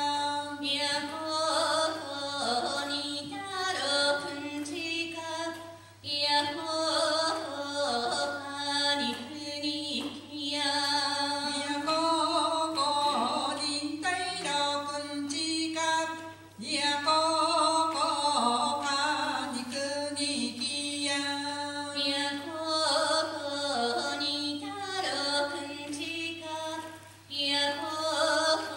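Two Ainu women singing a traditional chant-like song in short repeated phrases, with no drums.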